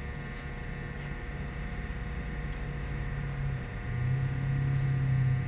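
Steady machine hum, with a low drone that swells about four seconds in and drops off at the end.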